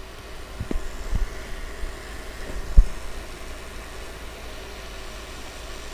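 Steady low background rumble with a few soft knocks from hands handling small electronic parts at a workbench; the loudest knock comes about three seconds in.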